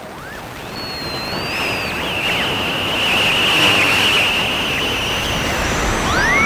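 Radio static like a shortwave receiver being tuned: a hiss that swells over the first few seconds, with whistling tones sliding up and down across it and a steadier whistle through the middle.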